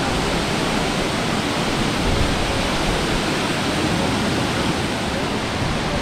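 Nauyaca waterfall pouring, a steady, even rushing noise.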